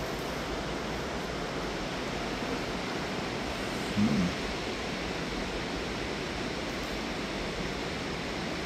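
Steady, even rushing noise of water on the underground river as the boat moves along it, with one short low sound about four seconds in.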